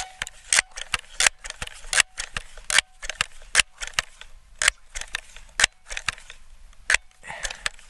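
Sharp, irregular clicks and clacks from the metal parts of a Crosman 1322 multi-pump pellet pistol being handled, about a dozen in all, coming quickly at first and then further apart.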